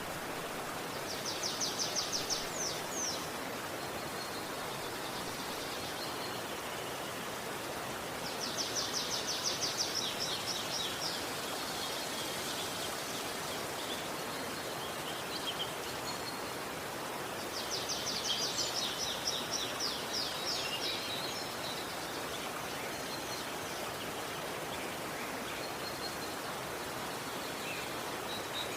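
Steady rush of river water with a songbird singing over it: three bouts of rapid, high trilled notes, about a second, eight seconds and eighteen seconds in, each lasting two to three seconds.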